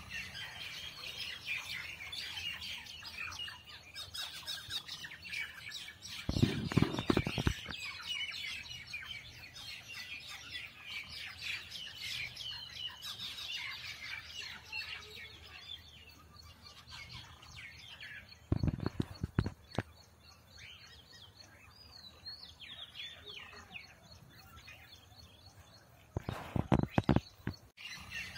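Many small birds chirping continuously in the background, with three short bursts of crinkling newspaper as a wrapped parcel is handled.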